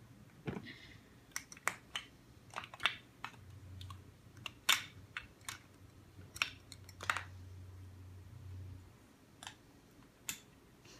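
Irregular sharp clicks and taps of plastic Lego pieces being handled and put together, about a dozen spread unevenly, the loudest a little before the middle.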